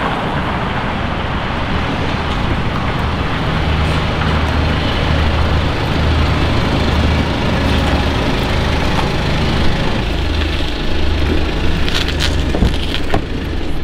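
BMW 320 estate's engine running at low speed as the car is driven slowly out of the garage, a steady low hum. A few sharp clicks come near the end.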